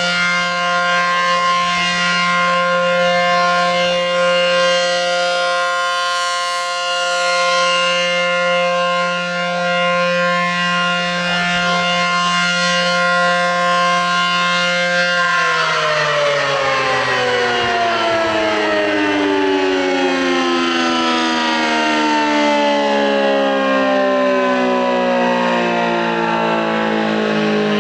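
ACA Allertor 125 electronic outdoor warning siren sounding a loud steady alert tone, which about halfway through begins winding down in a long falling pitch glide as the one-minute steady test ends.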